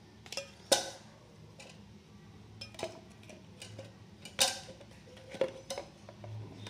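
Light clinks and knocks of kitchen utensils and containers, scattered at irregular intervals, with two louder knocks about a second in and about four and a half seconds in. A faint steady low hum runs underneath.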